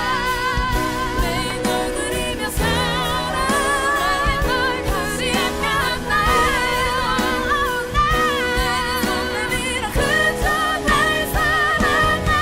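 Music with singing: a sung melody with strong vibrato over a full instrumental backing.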